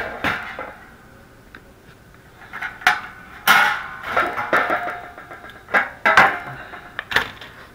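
Stamped sheet-metal heating-element housing and its loose, broken wire heating coil clattering as they are handled and moved: a string of sharp metallic clanks and rattles, the loudest about three and a half and six seconds in.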